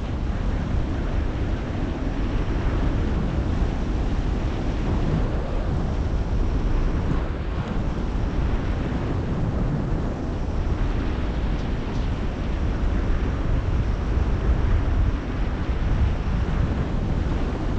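Strong wind buffeting the microphone: a steady low rumble of wind noise with no engine or voice in it.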